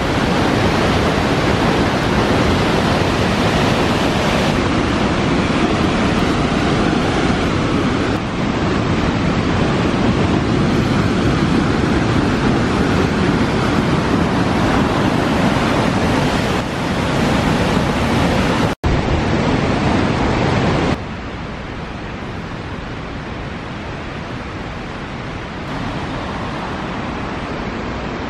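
Elk Falls waterfall and its rapids rushing loudly and steadily, in several cut-together shots. About three-quarters of the way through, the rush drops to a lower, steady level.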